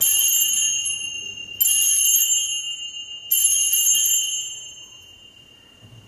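Altar bells (sanctus bells) rung three times, about a second and a half apart, each ring a bright jingling cluster that rings on and dies away after the third. They mark the elevation of the consecrated host at Mass.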